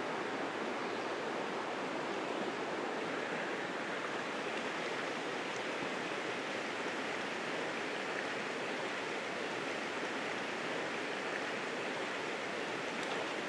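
Mountain trout stream's water running, a steady even rush with no breaks.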